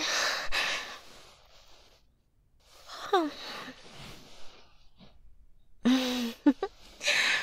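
A woman yawning: a long noisy breath, then a voiced sound sliding down in pitch, with short hums and another breath near the end.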